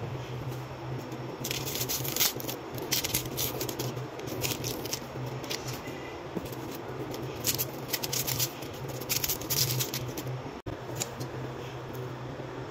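Dry onion skin being peeled off by hand and knife: crackly, scratchy rustles in short clusters, over a steady low hum.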